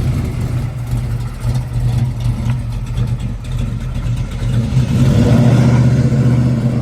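1972 Chevrolet Chevelle's engine running steadily, getting louder about five seconds in.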